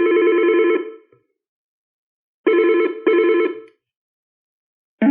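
Yealink T42G desk phone's speaker playing ringtone previews as ringtones are scrolled through. A rapidly trilling electronic ring cuts off about a second in. Two short bursts of the same ring come around the middle, and a different, lower-pitched ringtone starts right at the end.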